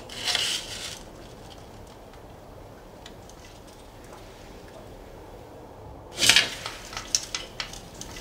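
Venetian blind slats rattling and clicking as a hand parts them: a short rustle at the start, then a louder clatter about six seconds in followed by several quick clicks.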